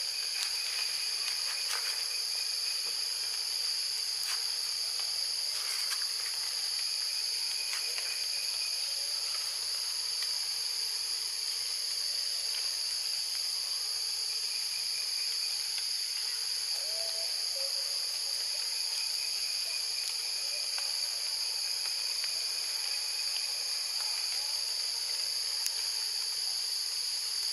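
Steady, high-pitched drone of forest insects, several pitches held together, with a fainter buzz that comes and goes every few seconds and a few light clicks.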